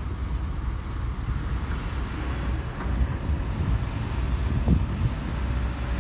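Diesel engines of excavators running with a steady low rumble, with a few brief knocks.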